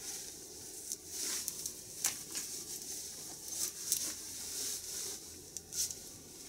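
Polyester motorcycle jacket rustling as it is fastened and smoothed down, with several sharp clicks from its fasteners.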